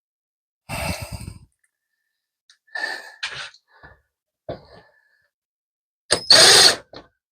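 A man sighing and exhaling hard several times, the loudest a long blowing exhale near the end, after a setback in the wiring.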